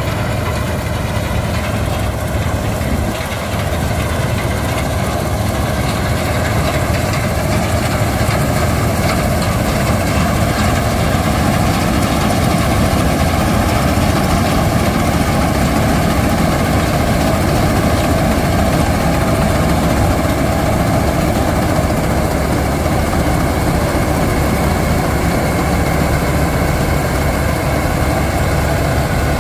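Laverda M100 AL combine harvester running steadily under load while cutting and threshing wheat. Its engine and threshing machinery make a loud continuous drone.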